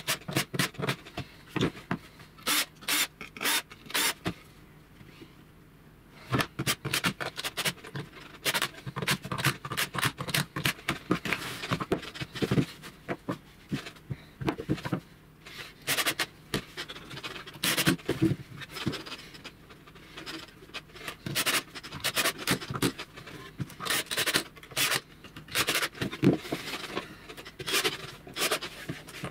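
Sharp clicks, knocks and scrapes of laminated plywood panels being handled and fitted together on a workbench, with a cordless drill-driver driving screws into the panels at the start and near the end. There is a quieter pause of about two seconds early on.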